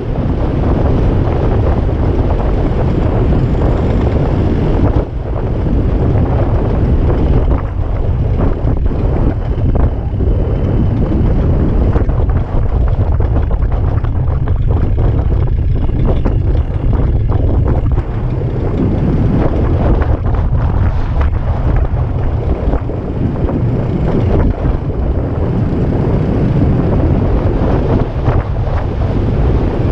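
Heavy wind buffeting the microphone: a loud, steady rushing roar with no clear tone in it.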